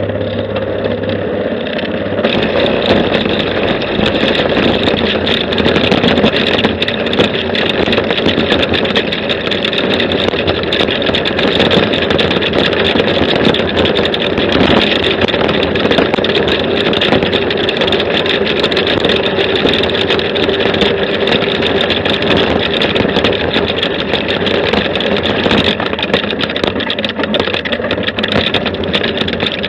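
Buggy engine running steadily while driving, with a dense rushing noise over a held engine note; it grows a little louder and fuller about two seconds in.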